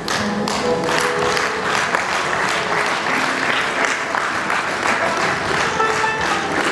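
Concert audience applauding steadily, with music still playing softly underneath.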